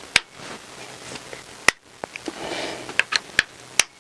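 Hand tool working the bolts of a motorcycle clutch cover loose: a series of sharp metallic clicks and knocks, spread unevenly, with soft rustling of hand and tool between them.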